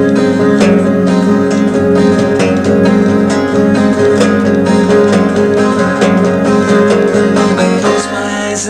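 Baldwin 712 12-string semi-acoustic guitar strummed unamplified in a steady rhythm, recorded on cassette, with no singing. The low strings fall away about eight seconds in as the playing winds down.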